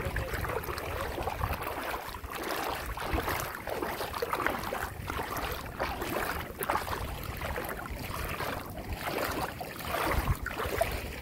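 Bare feet wading through shallow water, sloshing and splashing step after step in an uneven rhythm.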